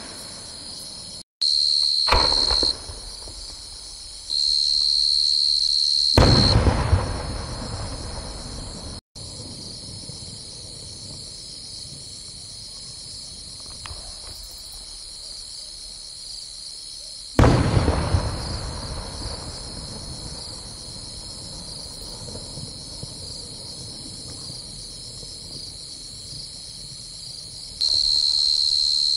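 Aerial firework shells bursting: three loud booms, about two, six and seventeen seconds in, each followed by a rumbling echo that dies away over a few seconds.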